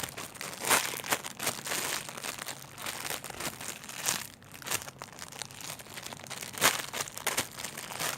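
Crinkling and rustling as squishy toys are handled, with louder crackles about a second in and near the end.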